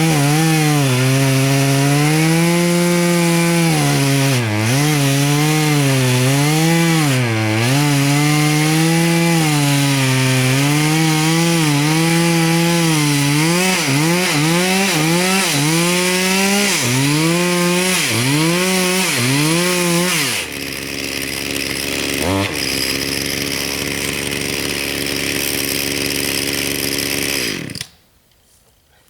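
Two-stroke chainsaw cutting wood, its engine pitch rising and dipping over and over as the chain bites and frees. About twenty seconds in it falls back to a quieter running, then stops abruptly near the end.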